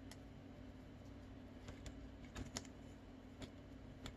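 Faint scattered ticks and rustles of folded colour paper being handled as a marker pen pushes a straw down into a paper vuvuzela's cone.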